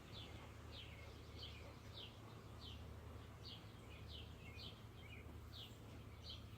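Faint, evenly repeated bird chirps, each a short high note falling in pitch, about one every two-thirds of a second, over a low steady hum.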